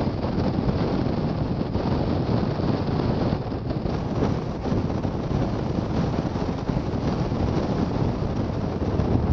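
Wind rushing over the microphone and road noise inside a moving car: a steady, low rumbling rush with no distinct events.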